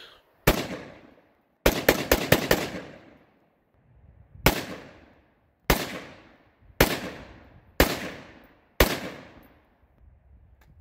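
.223 AR-15-style rifle firing: one shot, a quick string of about five, then five single shots about a second apart, each cracking sharply and trailing off in an echo.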